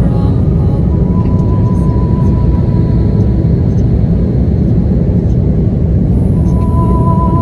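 Steady, loud cabin noise of an Airbus A330-200 airliner in flight, heard by a window seat: engine and airflow rush with no break.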